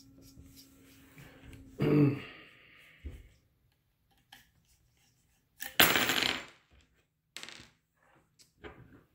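Small metal parts of an Andis GTX trimmer, its blade screws and blade, clicking and clattering as they are taken off and set down on a hard surface. The loudest clatter comes about six seconds in, with a few lighter clicks and knocks before and after.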